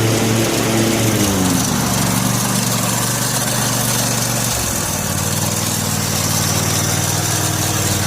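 18 hp Kawasaki twin-cylinder engine of a Husqvarna YTH 1848 XPT lawn tractor running. Its pitch falls over the first couple of seconds, then holds steady.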